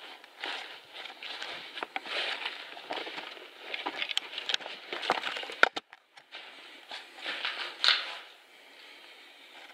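Footsteps crunching through dry fallen leaves and twigs at a walking pace, with one sharp crack about five and a half seconds in. After a brief break the crunching steps go on and then die down.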